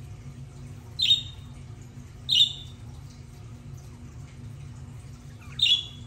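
Pet budgerigars giving three short, sharp calls: about a second in, again a second later, and near the end, over a steady low hum.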